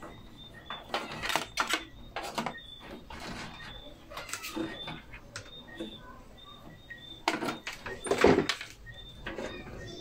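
Computer cables and plastic connectors being handled and rummaged through: irregular rustles and clicks, with a louder clatter about seven to eight seconds in. Faint short high chirps repeat in the background.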